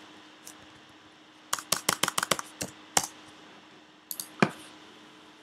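Computer keyboard typing: a quick run of about eight keystrokes, one more key press a moment later, then two louder clicks near the end.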